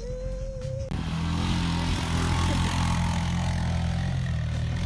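A small engine running at a steady speed, cutting in abruptly about a second in.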